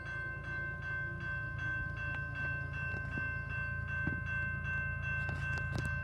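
Railroad crossing bell ringing steadily, about two strokes a second, over the low rumble of an approaching freight train that grows louder toward the end.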